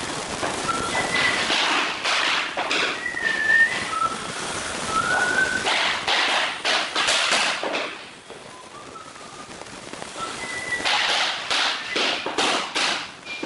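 Hammer striking a wooden tapping block against the edge of floor planks to knock the click joints tight, in quick runs of sharp knocks. The strikes pause about eight seconds in, then start again.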